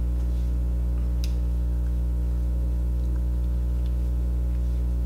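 Steady low electrical hum with a stack of evenly spaced overtones, at an unchanging level, with a few faint ticks over it.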